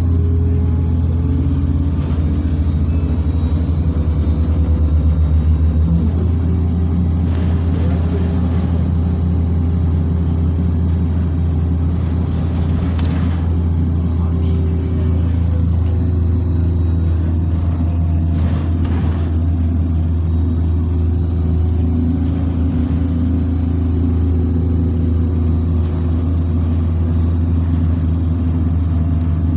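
Bus engine and drivetrain running steadily with a low hum as the bus drives along, heard from inside the passenger saloon, the pitch rising and falling gently with the throttle. A few short rushes of noise break in about a third, halfway and two thirds of the way through.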